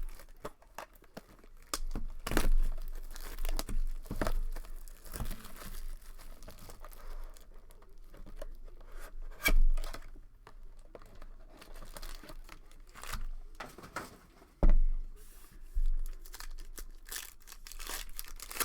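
Trading card box and foil packs being torn open, wrappers crinkling, with scattered knocks and thumps from handling the box and cards; the loudest thumps come about halfway through and again near three-quarters of the way in.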